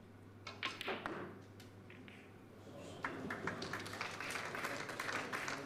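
Snooker cue striking the cue ball with sharp clicks of ball on ball as the green is potted, then audience applause starting about three seconds in.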